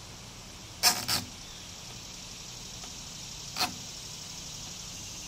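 Sharp clicks of the hitch bike rack's wheel-holder parts being handled and fitted around a road bike's front wheel: two quick clicks close together about a second in, then one more a couple of seconds later.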